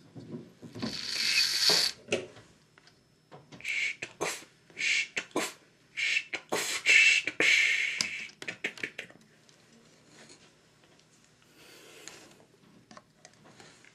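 A person making mouth sound effects for a toy steam engine: bursts of hissing and puffing like steam, with sharp clicks between them. The bursts stop about nine seconds in, leaving only faint sounds.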